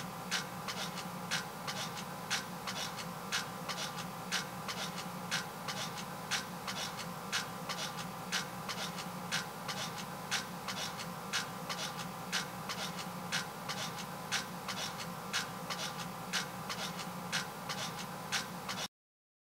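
Sharp rhythmic clicks or chirps, about two a second, over a steady low hum; the sound cuts off abruptly near the end.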